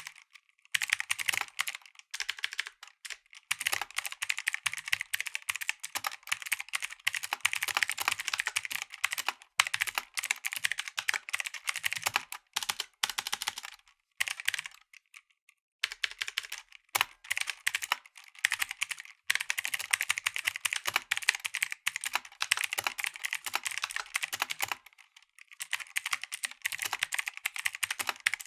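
Mechanical keyboard with clicky blue switches being typed on in fast, continuous runs of keystrokes. The typing breaks off briefly about halfway through and again near the end.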